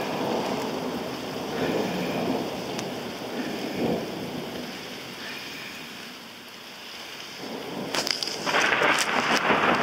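Rain falling steadily during a thunderstorm, with thunder rumbling. The sound eases a little, then swells much louder about eight seconds in.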